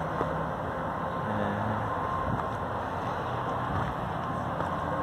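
Distant freeway traffic on Interstate 80 heard from high above: a steady drone of passing vehicles.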